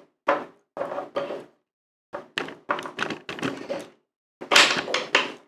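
Plastic action figure being handled and knocked against a wooden tabletop: a run of short, uneven thunks and clicks, the loudest cluster near the end.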